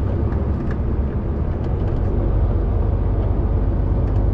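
Lorry cab interior while driving: a steady low engine drone with tyre and road noise over it.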